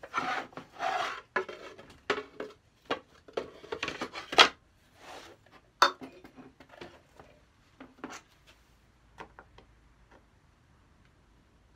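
Handling the parts of an antique wooden writing box on a workbench: a busy run of sharp knocks and clatters of wood and small metal parts, with stretches of scraping. It thins out to a few light clicks in the second half as a screwdriver is used on the box.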